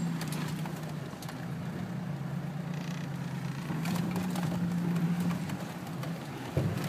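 Off-road vehicle's engine running at low revs, heard from inside the cabin as it crawls over a rough, rutted track, with scattered light knocks and a thump near the end as the vehicle jolts.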